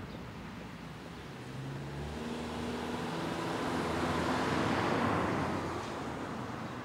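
Road traffic: a passing car, its engine and tyre noise building to a peak about five seconds in, then easing off.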